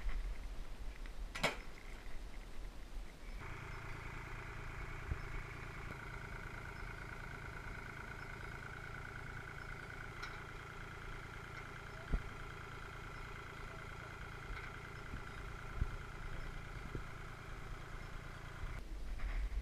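Small quadcopter drone's motors and propellers humming steadily with a slight warble. The hum starts abruptly a few seconds in and cuts off shortly before the end. A few sharp clicks sound during it.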